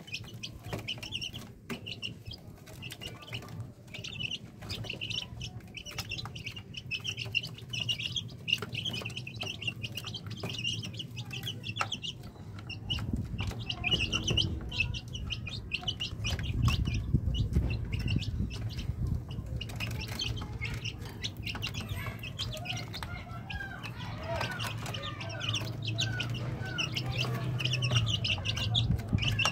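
Ayam kampung chicks peeping continuously in short high chirps, with many small clicks and wing flutters from the brood moving about; a low rumble comes in about halfway through.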